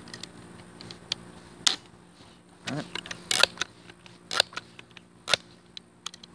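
Crosman 1377 multi-pump air pistol being pumped up for a three-pump shot: a few sharp mechanical clicks and clacks of the pump lever being swung open and shut, spaced about a second apart.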